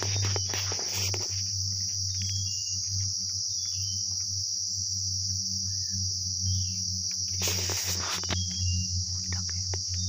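Steady high-pitched insect drone in tropical forest, over a low steady hum, with a bird's short falling chirps now and then and a brief rustle about seven and a half seconds in.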